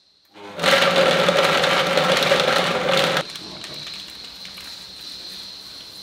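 Electric blender motor running for about two and a half seconds, then cutting off abruptly, blending dates into a paste.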